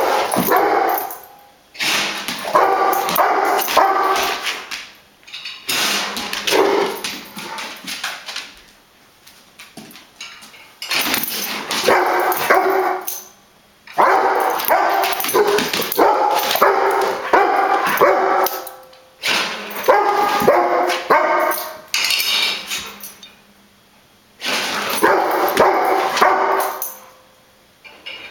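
A dog barking and whining in repeated loud bouts of a few seconds each, with short pauses between them.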